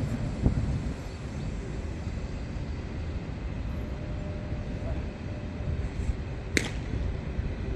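Steady low outdoor rumble with one sharp crack about six and a half seconds in, the knock of a baseball in fungo fielding practice.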